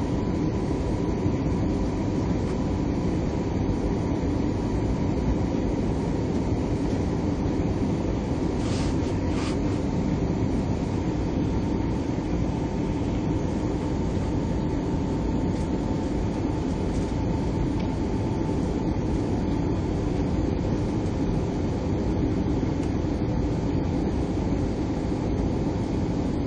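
Airbus A320 airliner noise, a steady rumble of engines and airflow with a faint high steady tone running through it.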